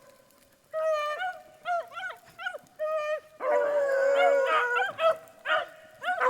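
A pack of beagles baying on a rabbit. Separate short, pitched bawls come first, and from about halfway several dogs give tongue together in an overlapping chorus.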